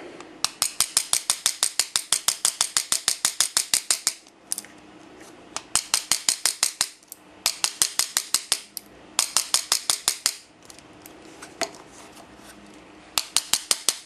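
M1 bump key being struck over and over in the keyway of a Master Excell M187D padlock, bumping the pin tumblers: quick runs of sharp metallic clicks, about eight a second, in five runs with short pauses between.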